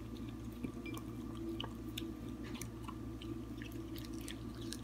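Corgi puppy chewing waffle and strawberry pieces from a ceramic bowl: soft, irregular smacks and small clicks.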